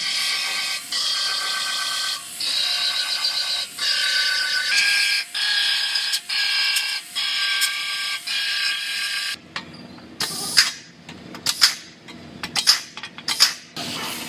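Small hand-held sanding tool whining at high speed in long runs with brief stops, sanding bare metal around the plug-weld holes on a new replacement dogleg panel's flanges. About nine and a half seconds in it gives way to short hissing bursts from an aerosol primer can sprayed onto the bared flange.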